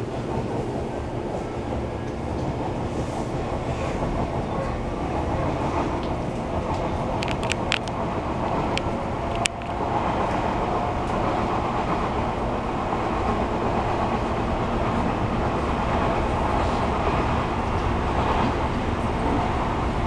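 Interior running sound of an Odakyu 3000 series electric train under way: the steady hum and whine of its Mitsubishi IGBT VVVF inverter and traction motors over the rumble of wheels on rail. A few sharp clicks come about halfway through.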